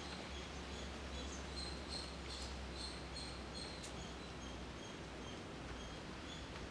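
Faint outdoor ambience: short high chirps repeating a few times a second, alternating between two pitches, over a steady low rumble.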